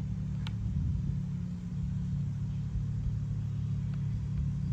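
A steady low mechanical hum, with a single light click about half a second in.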